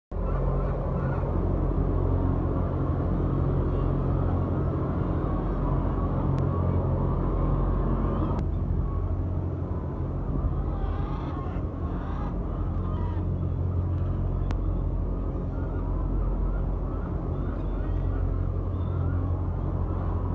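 Steady low machinery hum inside a large laying-hen house, with the constant chatter of a big flock of brown laying hens over it.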